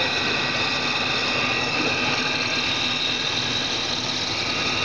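DLG small fish feed extruder running steadily, its electric motor and extrusion screw giving an even mechanical noise with steady high-pitched tones over it.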